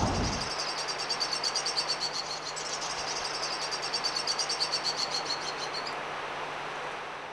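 A rapid, even run of high chirps over steady outdoor background noise with a faint low hum. The chirping stops about six seconds in, and the background fades out near the end.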